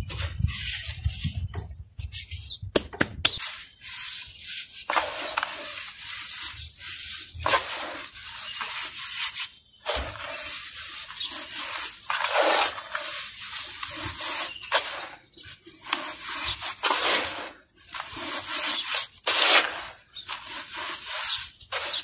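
Hands rubbing, raking and crumbling fine dry powdery grit in a plastic tub, giving a rough, gritty hiss that swells and fades with each stroke. A few sharp clicks come about three seconds in.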